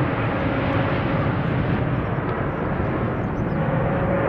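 Lockheed Martin F-35 Lightning II fighter jets flying overhead, their jet engines giving a loud, steady roar with a faint steady whine in it.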